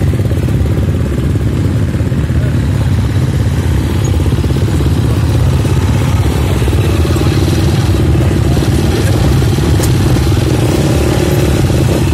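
Several motocross bikes running at low revs close by as they ride slowly past in a line, a steady, dense engine drone.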